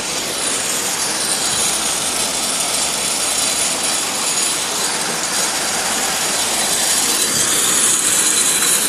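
Stone crushing plant machinery running: a loud, steady mechanical noise with no breaks, with faint high squeals gliding in and out.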